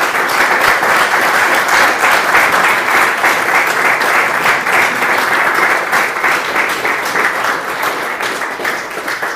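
Applause from a small roomful of people, many hands clapping steadily, easing slightly near the end.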